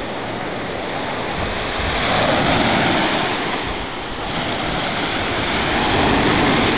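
Sea waves washing onto a beach, a steady rush of surf that swells twice and eases between.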